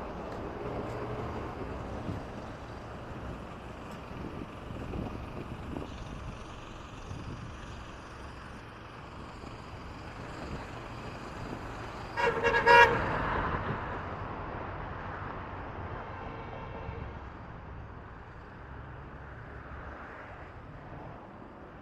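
Steady street traffic noise with a vehicle horn honking in a short burst about twelve seconds in, and a fainter horn sounding briefly a few seconds later.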